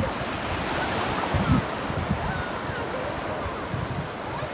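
Sea surf washing on the shore, with wind buffeting the microphone in low gusts.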